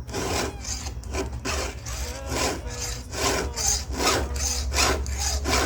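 Round chainsaw file rasping across a chainsaw chain's cutter teeth in steady repeated strokes, about two a second: hand-sharpening the chain, with pressure on each forward push and relief on the way back.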